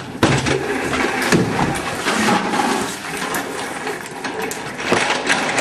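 Office chair casters rolling and rumbling steadily over the floor, with scuffs and knocks throughout.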